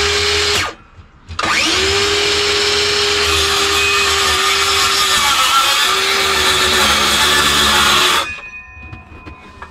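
Cordless power saw cutting into a plywood boat floor: a steady high whine that spins up, stops briefly about half a second in, spins up again and runs about seven seconds before cutting off near the end. The blade is running fast, too fast for the user's liking.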